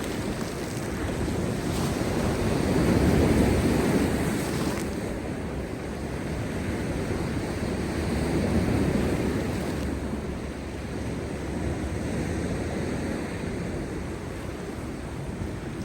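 Heavy post-storm sea waves crashing on rocks: a continuous surf roar that swells and eases, loudest about three seconds in and again around eight seconds.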